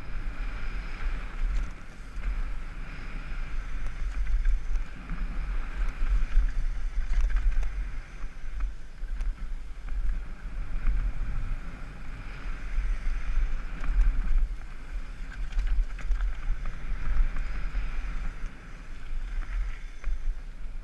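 Wind buffeting the microphone of a helmet-mounted camera during a downhill mountain bike descent on a dry dirt trail, a heavy steady rumble. Tyre noise on the dirt runs underneath, with scattered clicks and rattles from the bike.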